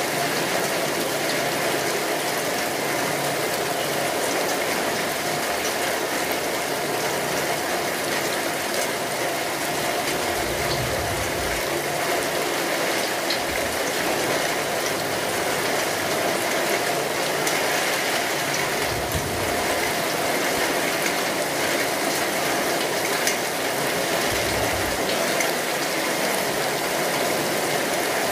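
Steady rain, an even crackling hiss that never lets up, with a few short low rumbles about ten, nineteen and twenty-four seconds in.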